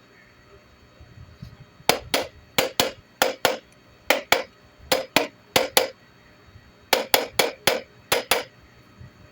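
Sharp taps driving the upper bearing cup of a BLDC ceiling fan motor into place, about eighteen strikes, mostly in quick pairs, each with a short ring, and a pause about six seconds in.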